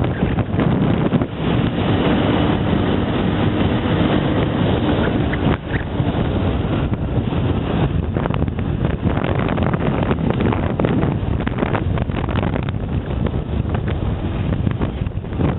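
Motorcycle riding along at street speed: wind buffeting the microphone over the steady running of the bike's engine.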